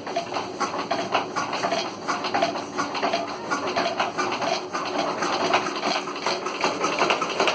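Diesel engine turning over and chugging with a rapid, even knocking beat, about five to seven knocks a second, as it is started by hand crank.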